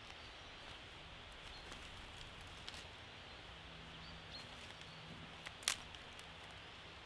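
Small kindling fire crackling faintly as it catches and twigs are laid on, with scattered light ticks and one sharp snap late on.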